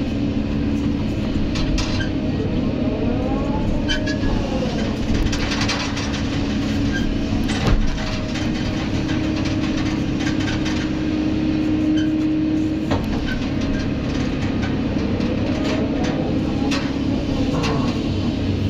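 Kobelco SK200 hydraulic excavator running under load, heard from inside its cab: a steady diesel engine note with hydraulic whines that rise and fall twice as the machine digs and swings, and a couple of sharp knocks.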